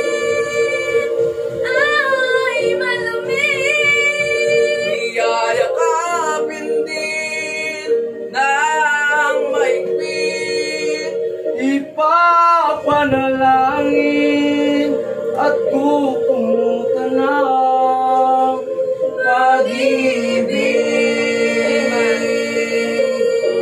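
A young woman and two young men singing a Tagalog song into microphones, taking turns and joining in together, over a steady held background note.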